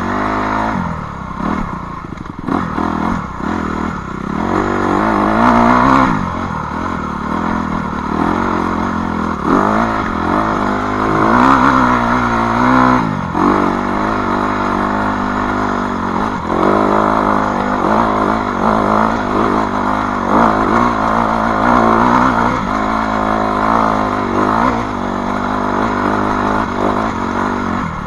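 Dirt bike engine revving up and easing off over and over as the bike is ridden, its pitch rising and falling with the throttle.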